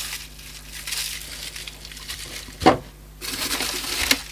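Packaging rustling and crinkling as parts of a 3D printer kit are unwrapped and handled, with one sharp knock about two-thirds of the way through.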